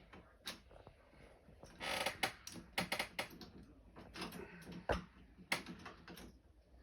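Door-lock hardware and hand tools being handled: a run of irregular metal clicks and knocks, with a short scraping rattle about two seconds in.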